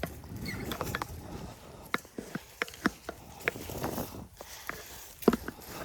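A small hand tiller chopping into compacted, dry soil: irregular knocks and scrapes as the tines strike and break up dirt clods, with one sharper knock near the end.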